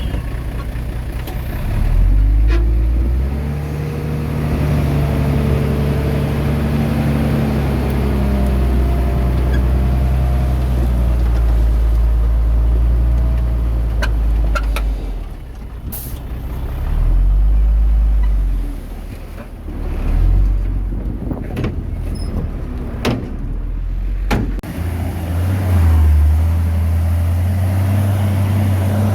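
Heavy diesel earthmoving machinery at work: the engines run and rev up and down, with several sharp knocks in the second half.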